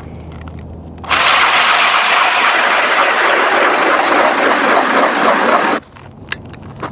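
Ion battery-electric ice auger with freshly sharpened 10-inch blades drilling into lake ice: a low motor hum, then from about a second in a loud steady scraping noise as the blades shave through the ice. The noise drops out for about a second near the end, then starts again.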